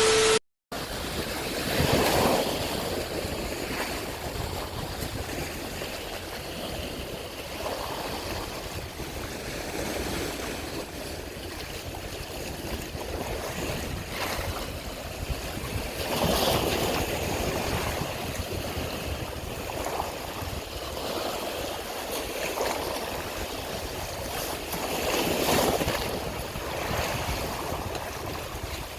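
Sea waves washing steadily, swelling louder every few seconds as sets of waves come through.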